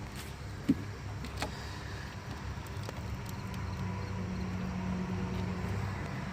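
A vehicle engine running steadily at idle, with a single sharp click about a second in and a few lighter clicks.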